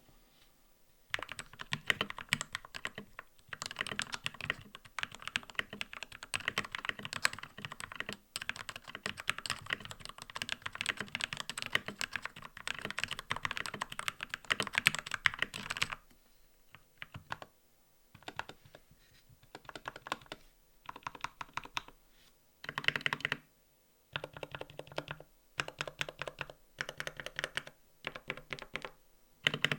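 Typing on a custom mechanical keyboard with lubed Gateron Ink Black V2 linear switches. About a second in, fast continuous typing starts, and after about 16 s it breaks into shorter bursts of keystrokes with brief pauses between them.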